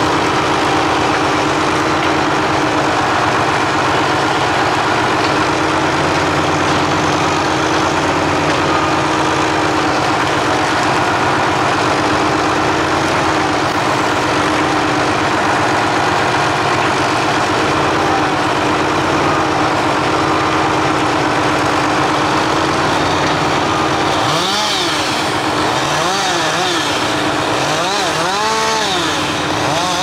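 County 1124 tractor's diesel engine running steadily at working revs while its log crane operates. Near the end its revs rise and fall several times in quick succession.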